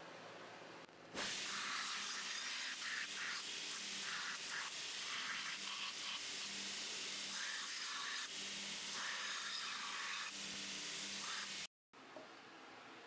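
Belt grinder grinding the forge scale off a forged steel knife blade: a steady abrasive hiss over the motor's hum that swells and eases. It starts about a second in and cuts off suddenly near the end.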